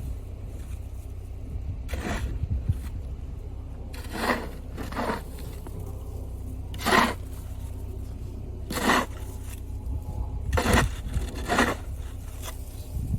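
Snow shovel scraping across a snowy driveway, about seven separate strokes one every second or two, over a steady low rumble.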